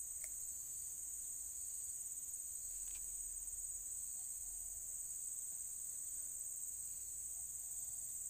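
A steady, high-pitched insect chorus trilling without a break.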